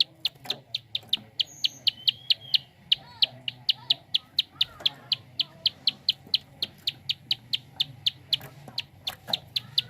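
Prinia (prenjak) giving its fast 'klik' call: a rapid, even series of sharp high ticks, about five a second. Faint chirps of other birds and a low steady hum lie underneath.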